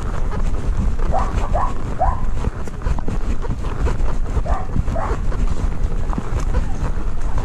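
Five or six short, high yelping calls from an animal, over a steady low rumble.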